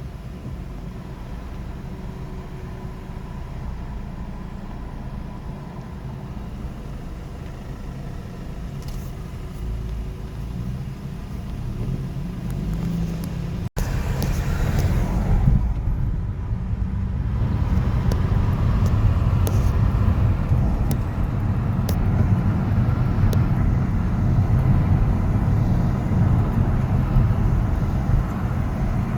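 City street traffic: a steady rumble of cars passing. About halfway through there is an abrupt break, after which the traffic is louder and hissier.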